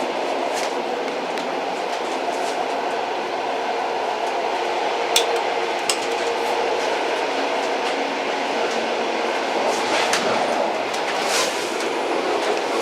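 An old train running steadily, a continuous rumble with scattered sharp metallic clicks, two of them stronger about five and six seconds in, and a brief hiss near the end.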